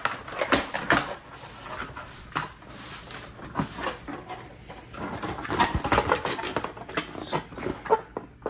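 Packaging of a new basketball being handled and opened: irregular crinkling, rustling and small clicks.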